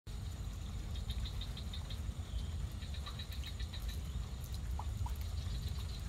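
Outdoor wildlife ambience: two runs of rapid, high chirping calls, then two short lower calls about five seconds in, over a steady low rumble and a faint, steady high whine.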